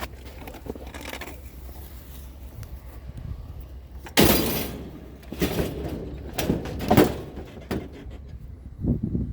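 A sudden loud crash about four seconds in, followed by a series of knocks and clunks, over a steady low rumble.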